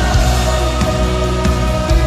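Heavy, distorted electric guitar played through a Zoom G6 multi-effects processor, over drums that hit at regular intervals.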